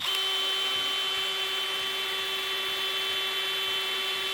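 An electric power tool is switched on suddenly and runs steadily with an even whine, used to cut open a porch column.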